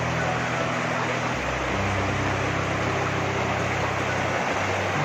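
Shallow rocky river rushing and splashing over boulders in a steady, even rush. A low steady hum runs underneath and shifts in pitch twice.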